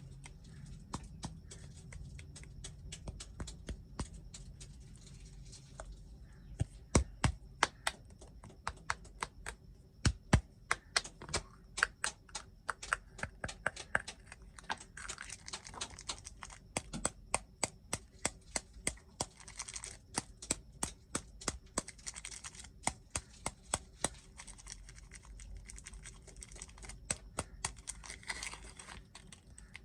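Snack packaging being handled and unwrapped by hand: runs of sharp taps and clicks, quickest and loudest from about seven to twelve seconds in, with patches of plastic crinkling.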